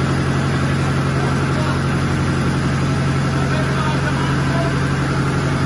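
Marine diesel engine in a ship's engine room running at a steady speed, a constant low drone with an even pulsing underneath that does not change.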